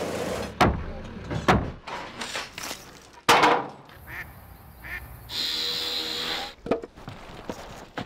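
Compact track loader with a snow-blower attachment running and throwing snow, with a couple of knocks, then a sudden loud knock about three seconds in. After that, ducks calling on open water: two short quacks and a longer call.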